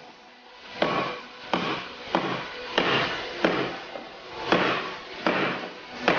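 Cold Steel Rajah II folding knife, a big kukri-style blade, chopping with repeated strokes: about eight sharp chops, roughly one every two-thirds of a second, each ringing off briefly.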